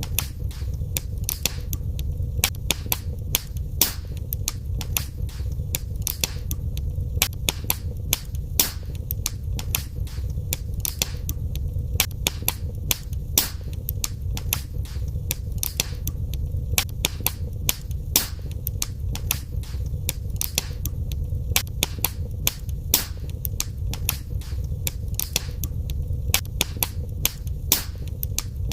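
Wood fire crackling in a fireplace: frequent, irregular sharp pops and snaps over a steady low rumble of the flames.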